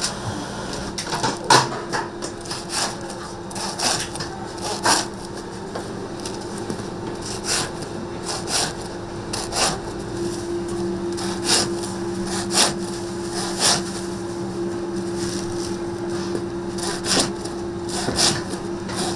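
Bread knife sawing through loaves of bread in short rasping strokes, over a steady machine hum.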